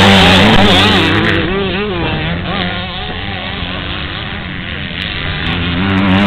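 Two-stroke 125 cc motocross bikes revving hard as they race past, the engine pitch rising and falling with throttle and gear changes. The sound fades through the middle, and another bike's engine grows louder near the end.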